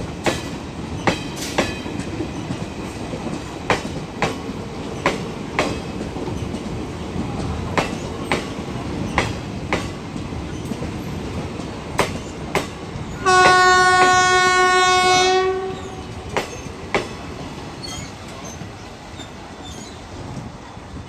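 Train running through the station: its wheels click rhythmically over the rail joints, often in pairs, and a little past halfway the locomotive sounds its horn once, one steady tone for about two seconds.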